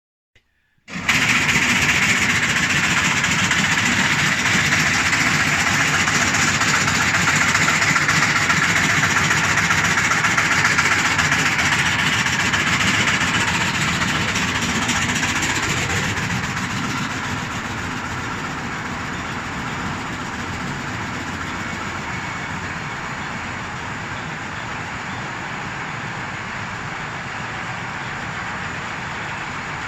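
Automatic plug-tray feed line running: a steady mechanical rattle and whir of the disc chain dragging feed through the pipes. It starts about a second in and eases to a somewhat lower level about halfway through.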